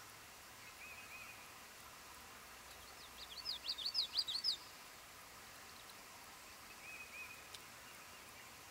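Northern parula singing once, about three seconds in: a rapid run of upswept notes that climbs in pitch and grows louder over about a second and a half. A fainter short trill from another bird sounds twice, near the start and near the end.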